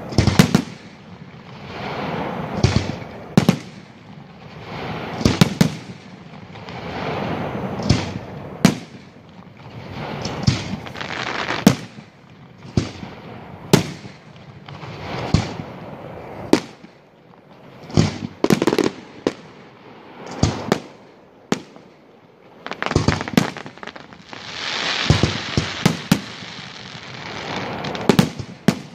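Aerial fireworks shells bursting: loud sharp bangs every second or two, some in quick pairs, with stretches of rushing noise between them.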